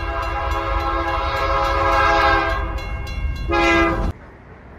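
A train's chime whistle blows one long blast and then a short one over a low train rumble. It cuts off abruptly a little after four seconds in.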